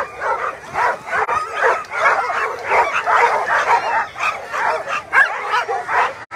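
A team of Alaskan husky sled dogs barking and yelping all together without a break: the excited clamour of a hitched team eager to run, held back at the start line.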